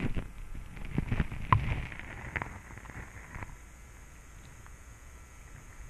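Muffled underwater clicks and knocks, several in the first three seconds or so, then a faint steady hiss, picked up by a submerged GoPro.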